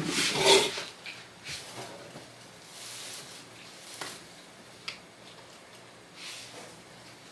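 Handling noises: soft rustling and scraping with two light taps partway through, as objects are moved about on a table.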